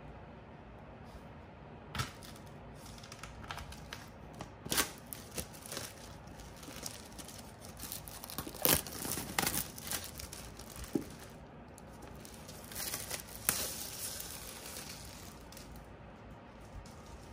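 Clear plastic shrink-wrap being torn and peeled off a cardboard iPad box: a run of crinkling and sharp tearing crackles that starts with a snap about two seconds in, is loudest in the middle, and dies away near the end.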